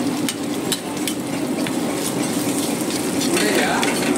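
Egg frying in oil on a large flat iron griddle, sizzling steadily, with scattered sharp metal clicks and taps of utensils.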